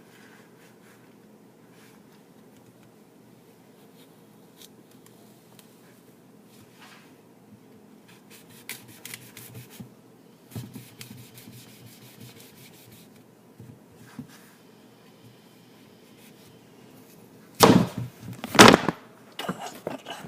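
Objects handled in a kitchen: a few soft clicks and knocks over a low steady hum, then two loud bangs about a second apart near the end.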